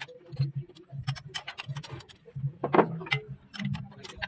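Irregular light metallic clicks and clinks of hand tools and fittings being worked on a Fuso 8DC9 diesel's inline fuel injection pump, with one louder clank a little past the middle.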